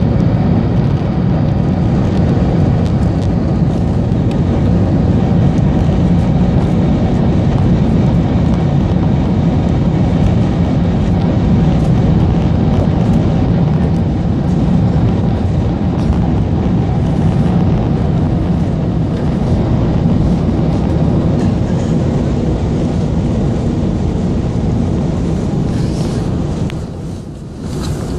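Airbus A380 cabin noise heard through the fuselage: a loud, steady low rumble of the airliner moving. It dips briefly near the end, then carries on a little quieter.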